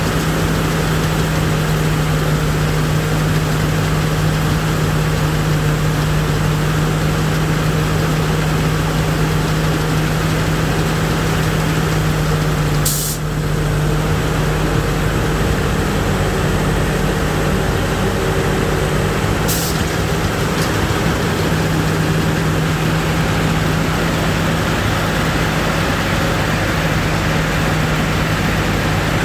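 Diesel engine of a Thai-built Sit Charoen combine harvester running steadily under load while harvesting, a constant low drone with a brief dip about halfway through.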